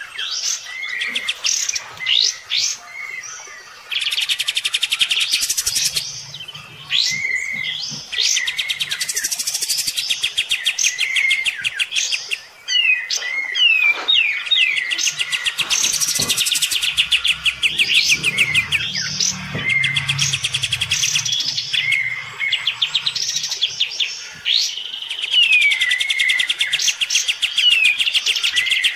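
Kapas tembak bulbuls singing hard against each other: long, fast, rattling trills alternating with short sliding whistled notes, nearly without pause.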